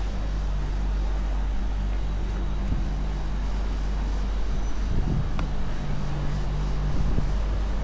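Steady low rumble and hum of outdoor ambient noise, with a faint click about five seconds in.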